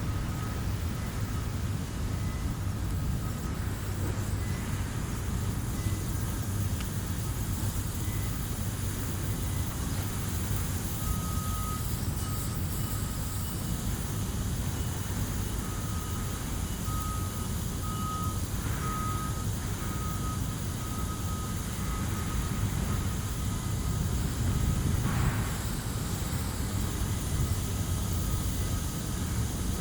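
Steady low rumble of surrounding industry and traffic, with a truck's reversing alarm beeping on and off in the distance, most steadily from about a third of the way in to about two thirds in.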